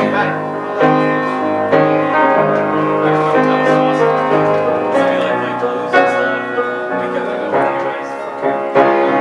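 Piano playing an instrumental passage of a slow song, striking sustained chords at a steady pace of about one a second.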